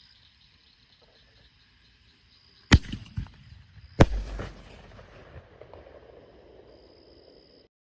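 Consumer firework mortar shell (Black Market Fireworks Smoking Guns) fired from its tube: a sharp launch bang, then about a second and a half later a second bang as the shell breaks, with a longer tail that dies away over a few seconds.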